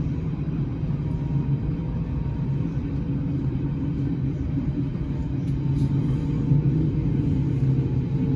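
Steady low rumble, with faint drawn-out tones that drift slowly above it.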